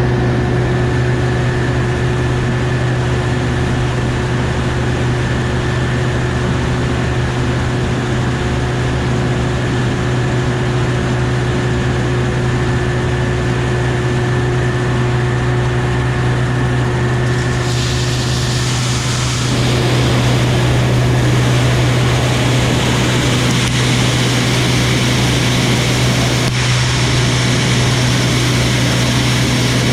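Heavy farm machinery's diesel engine running steadily under harvest work, a constant low drone with a steady hum. About eighteen seconds in, a louder hissing noise joins the engine.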